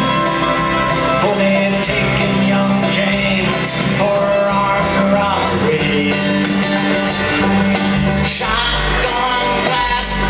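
A bluegrass band playing live, with banjo, fiddle, mandolin, acoustic guitar and upright bass.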